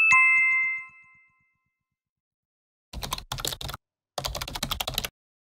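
A two-tone chime that rings out and fades over about a second, then, after a pause, two short bursts of rapid computer-keyboard typing clicks, each just under a second long: an intro sound effect.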